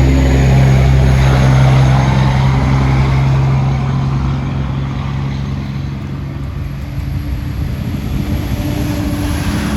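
A steady, loud, low motor hum that drops off about four seconds in, leaving a rougher low rumble.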